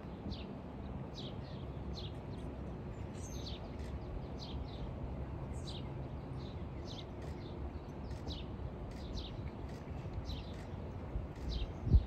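Birds chirping over and over, short high calls that drop in pitch, above a steady low background rumble. A sharp thump sounds just before the end.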